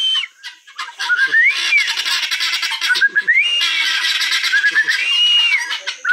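A roosting flock of guineafowl calling: a loud, rapid rattling chatter with repeated whistle-like notes that rise and fall every second or two.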